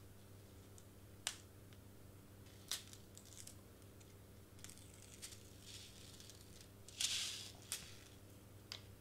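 Release-paper tabs being peeled off foam tape on a cardstock shaker ornament: a few faint light clicks and taps, with a short crinkly peel about seven seconds in, over a faint steady low hum.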